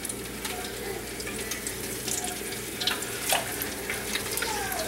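Battered corn dogs deep-frying in an electric deep fryer: the hot oil bubbling and crackling steadily, with scattered sharp pops.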